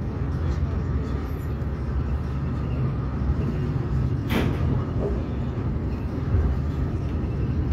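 DR1A diesel multiple unit running, heard from inside the passenger car, a steady low rumble as the train moves off slowly from the station. A short hiss about four seconds in.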